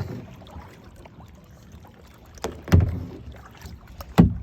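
A kayak being paddled, heard from a phone lying in the boat: a low rumble of water against the hull with a few hollow knocks, two close together midway and one near the end.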